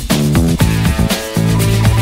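Background music with a steady electronic dance beat and bass line.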